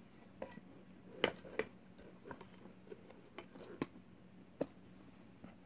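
Scattered light clicks and taps of a KEF egg speaker's aluminium shell being handled and fitted down over its driver assembly, with a sharper pair of knocks a little over a second in.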